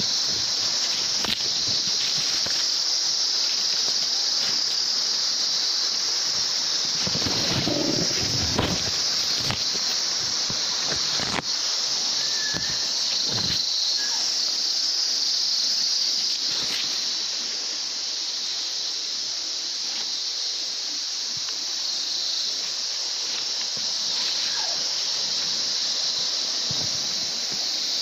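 A dense chorus of insects drones without a break in one steady high-pitched band. Now and then short rustles and snaps of leaves and twigs sound close by, most around eight seconds in.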